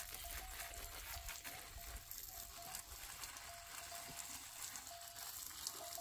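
Water spraying from a garden hose and pattering on plants and soil, a steady hiss with fine crackling ticks. A faint thin tone cuts in and out behind it.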